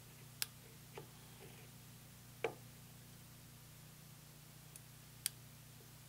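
A few isolated small clicks and one duller knock as a digital outside micrometer is handled and seated against a machined journal, over a faint low steady hum.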